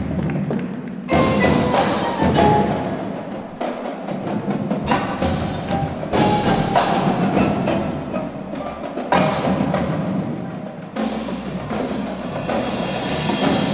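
Indoor percussion ensemble playing: front-ensemble marimbas and other mallet keyboards together with a marching drum line, with several sharp accented hits.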